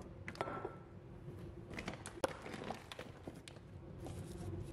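Groceries being set down on a kitchen counter: a scatter of light taps and knocks as packaged items and produce are placed, with one sharper click a little after two seconds in, over a faint steady hum.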